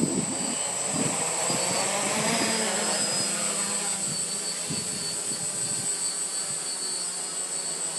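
Quadcopter's brushless motors and propellers spinning up for lift-off, the whine rising in pitch over the first two or three seconds, then a steady buzzing whine as it hovers, with gusty low rumbles underneath.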